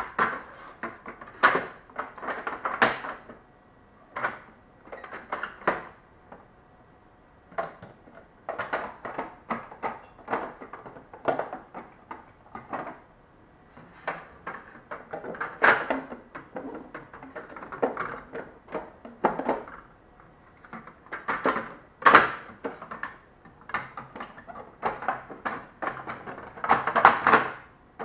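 Plastic espresso machine parts being handled, clicked into place and set down on a stone countertop: an irregular run of clicks, knocks and short scrapes with brief pauses between.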